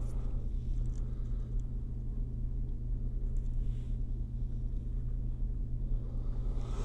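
Steady low hum of room tone, with no distinct event; applying the flux makes no clear sound.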